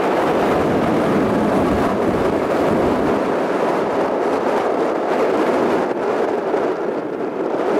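Boeing 737 airliner's jet engines, a loud steady rush of engine noise as it rolls along the runway after landing.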